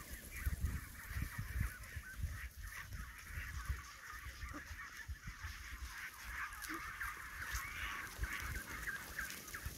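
A large flock of brown domestic ducks calling all together, a dense continuous chatter of many overlapping quacks, with irregular low thumps underneath.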